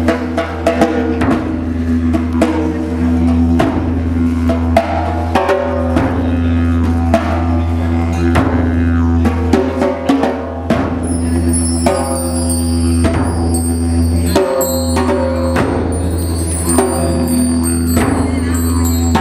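Didgeridoo playing a steady low drone, with irregular drum strikes over it. From about eleven seconds in, high ringing tones join.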